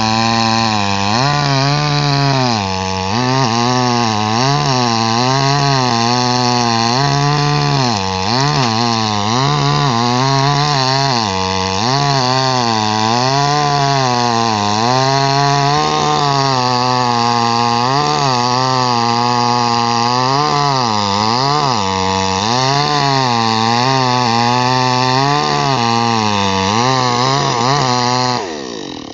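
Chainsaw running hard through wood, its engine speed rising and falling as it cuts, then dropping away sharply near the end.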